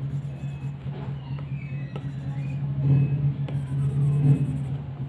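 Steady low rumbling hum, with a few faint light taps of an Apple Pencil tip on the iPad's glass screen.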